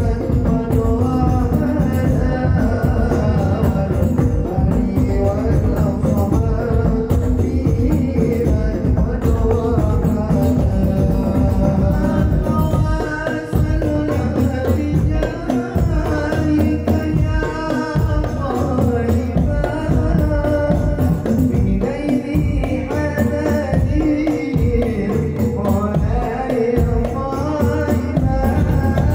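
Hadrah ensemble playing a sholawat: hand-struck rebana frame drums and bass drums keep a dense, steady rhythm, with voices singing over it.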